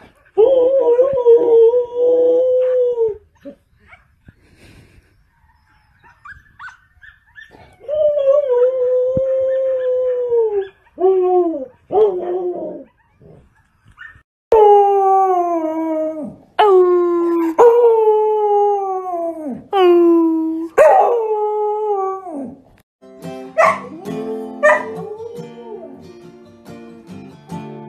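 A Samoyed howling: a long wavering howl, a second one after a pause, a couple of short yips, then a run of long howls that each slide down in pitch at the end. Near the end, an acoustic guitar starts strumming.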